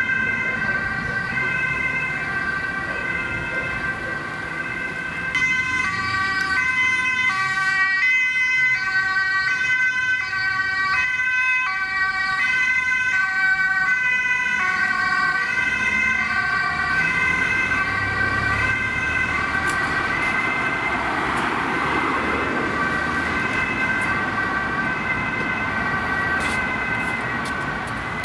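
Dutch ambulance two-tone siren, alternating steadily between a high and a low note, sounding loud and clear as the ambulance drives past.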